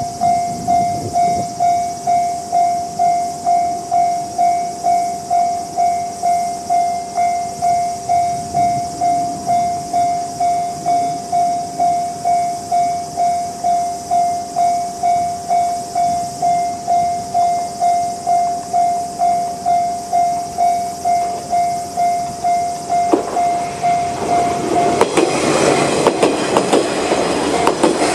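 Level crossing's electronic warning bell in the JR standard tone, ringing in an even pulse about twice a second. About 25 s in, a two-car diesel railcar set (KiHa 40 and KiHa 200) passes over the crossing, and its engine and wheels clattering over the rail joints drown out the bell.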